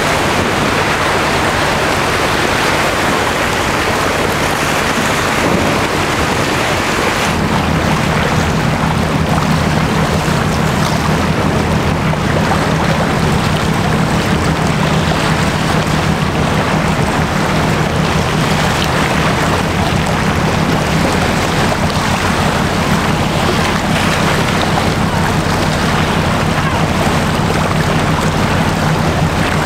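Wind and open water washing steadily. About seven seconds in, the steady low drone of a passing general cargo ship's engine comes in under it.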